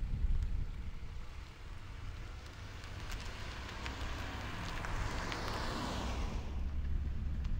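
A BMW 320i (F30) sedan driving past: tyre and engine noise swells as the car closes in, peaks about five to six seconds in, then fades quickly as it goes by. A low rumble of wind on the microphone lies underneath.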